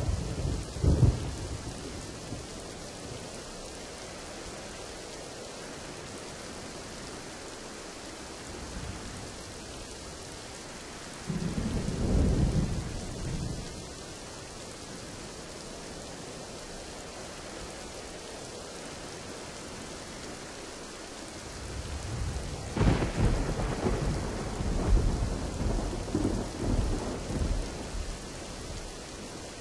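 Steady rain falling, with thunder over it: a crack about a second in, a rumble near the middle, and a long rolling peal in the last third that opens with a sharp crack.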